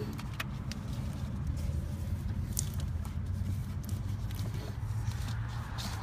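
Scattered light clicks and rustles of gloved hands pulling a spark plug wire through the engine bay, over a steady low background rumble.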